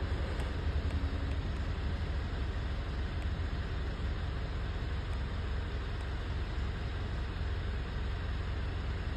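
Mitsubishi Triton engine idling with a steady low rumble; the engine has a misfire.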